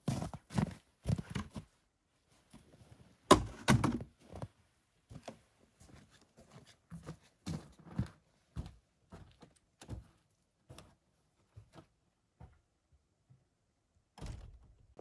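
Winter gear being handled and set down, with knocks and a loud thunk about three seconds in as the sled and ski are put down by the wooden post. Then booted footsteps walk away at about two steps a second and fade out.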